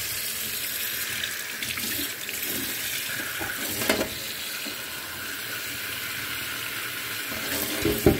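Kitchen tap running steadily into a mesh strainer full of meat pieces in a stainless-steel sink, the water splashing as the pieces are turned under the stream by hand. Two short knocks, about four seconds in and near the end.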